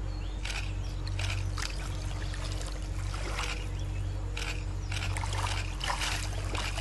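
Shallow river water trickling and splashing in short, irregular strokes over a low, steady rumble.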